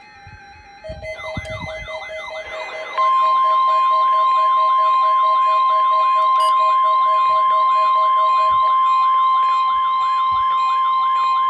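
NOAA Weather Radio warning alarm tone, the steady 1050 Hz test tone, coming in loud about three seconds in and holding steady. Under it are other electronic alarm sounds: a fast wailing siren sweep, a pulsing beep that stops near the end, and a fainter steady high tone.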